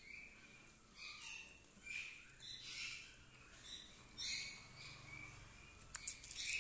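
Blue-fronted amazon parrot making short, scratchy calls, about five of them roughly a second apart, while it eats; a few sharp clicks come near the end.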